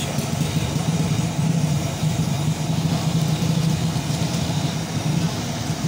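A steady, low engine hum.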